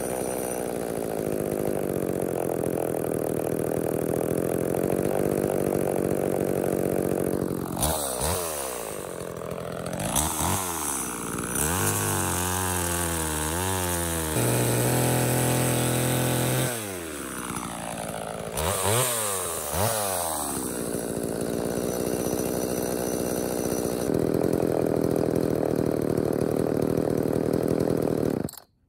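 Homelite Super 2 two-stroke chainsaw running: it idles, is revved up and down several times, and cuts through a log under load around the middle, its pitch wavering and then holding high at full throttle before dropping back. It is running well after a carburetor rebuild and tune-up.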